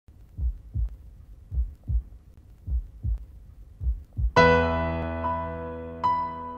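Low double thumps like a heartbeat, four times at an even pace, then a piano chord comes in about two-thirds of the way through and rings on, with higher single notes added over it.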